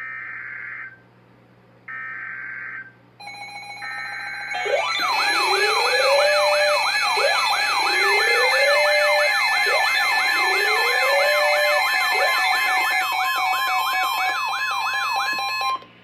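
EAS SAME header data bursts, three raspy screeches, followed by a bank of NOAA weather radios going into alarm together: the steady warning alarm tone layered with several receivers' own warbling sirens, rising sweeps and beeps, all cutting off at once near the end. It is the alert for a tornado warning.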